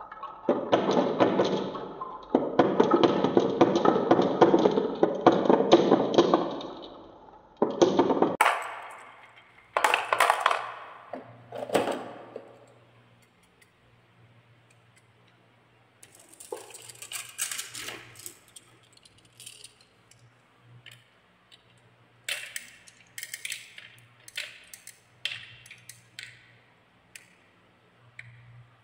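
Marbles rolling down a wavy wooden marble-run track, a dense rumble of rolling and clicking for several seconds, then a few shorter runs. After a lull come sparse sharp clicks and clacks of marbles knocking against the wooden ramp and each other.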